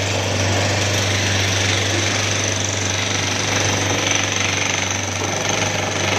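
Jackhammer breaking up road pavement, hammering rapidly and without a break over a steady low drone.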